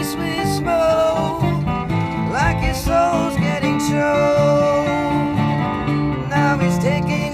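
A band playing a twangy, country-flavoured song with guitars to the fore, some notes bending up in pitch about two to three seconds in.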